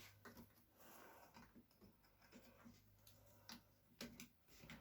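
Near silence with a few faint clicks and scrapes of small plastic laptop parts being handled as a stuck internal laptop speaker is worked loose.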